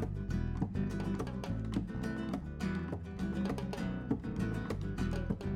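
Background music: acoustic guitar plucking a steady, gentle pattern.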